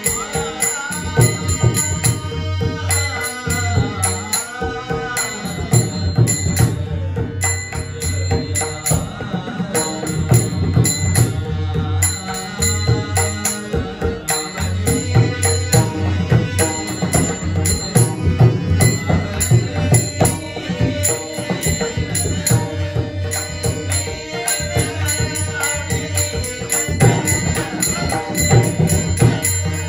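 Marathi devotional bhajan: a sung abhang over pakhawaj drum strokes and a steady metallic cymbal rhythm, with a held drone underneath. The singing voice is clearest near the start and again near the end.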